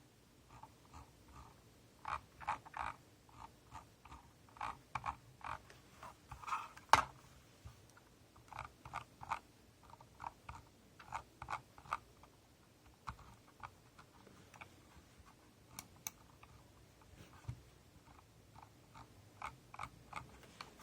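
Scroll wheel of a Logitech G304 wireless mouse being rolled, giving irregular clusters of short clicks and scraping ticks; the loudest comes about seven seconds in. This is the abnormal noise from the wheel.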